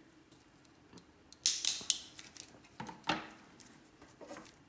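Cured blue resin 3D prints being snapped apart by hand: a scatter of sharp cracks and clicks of brittle plastic breaking at the supports, loudest about one and a half to two seconds in.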